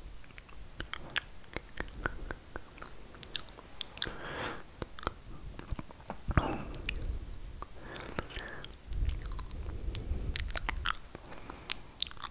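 Close-miked ASMR mouth sounds: a stream of quick, irregular wet clicks and smacks of lips and tongue. A few soft breathy sounds come in between.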